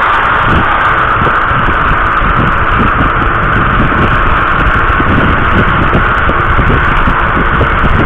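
Steady rush of wind on an action camera's microphone mixed with the noise of a moving vehicle, with irregular low buffeting thumps.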